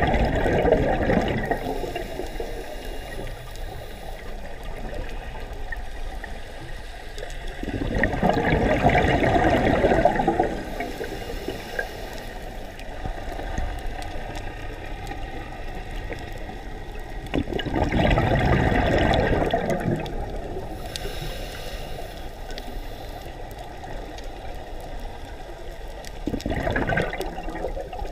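Scuba diver's exhaled breath bubbling out of the regulator underwater: four bursts of bubbles, each two to three seconds long, coming about every nine seconds, with quieter water noise between them.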